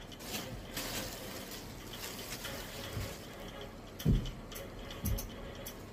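Water running and being poured into a metal milk can, with two dull knocks about a second apart near the end.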